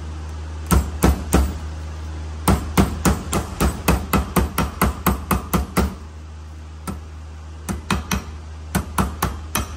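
Small hammer tapping metal brake pad clips down flat onto a caliper bracket: three light taps, then a quick run of about fifteen at roughly four a second, then more scattered taps near the end, to seat a clip that is not yet fully down. A steady low hum runs underneath.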